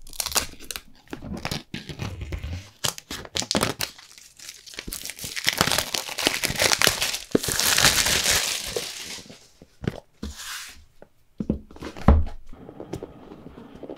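Plastic shrink-wrap being torn off a cardboard phone box by its pull tab and crinkled in the hands, with dense crackling throughout and one long loud stretch of crinkling midway. A few soft thumps near the end as the box is handled and opened.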